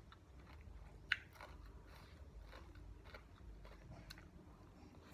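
A person chewing and biting a mouthful of spicy seafood papaya salad (tam sua), with faint crunches and one sharp click about a second in.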